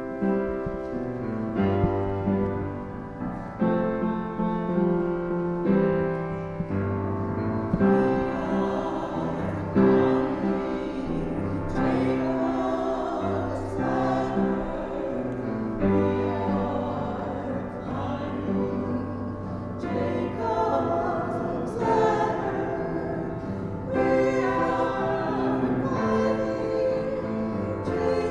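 Two singers singing a hymn-like sacred song with keyboard accompaniment. Held chords change about every two seconds at the start, and the voices come in clearly about eight seconds in.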